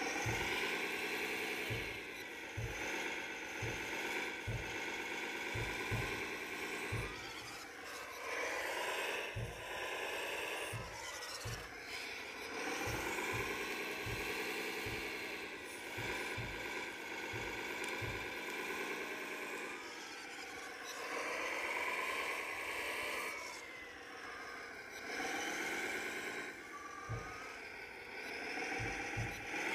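Small electric motors of a 1/14-scale RC CAT excavator whining as the boom, arm and bucket move. The pitch rises and falls in long sweeps, stopping and restarting several times, with quick low knocks of the gearing throughout.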